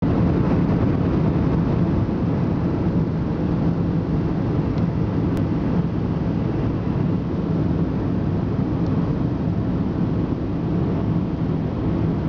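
Steady in-flight cabin noise of an Airbus A320-214 at cruise, heard from the rearmost row: an even rush of airflow and the drone of its CFM56 engines, mostly low-pitched with a faint steady hum underneath.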